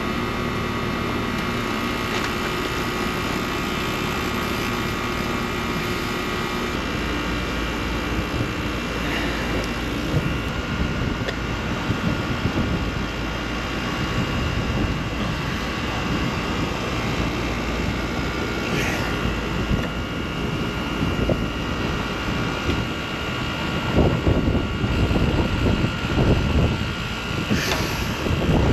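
Newly installed rooftop air-conditioning condensing unit running: a steady drone of compressor and condenser fan, with several steady tones that shift a few seconds in. It is running in before its refrigerant charge is adjusted. A few sharp clicks and some low rumbles come near the end.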